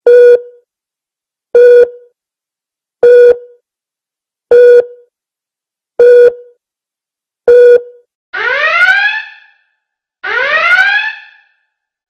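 Electronic alarm tones: six short, loud beeps about a second and a half apart, then a whooping alarm that rises in pitch over about a second and repeats every two seconds.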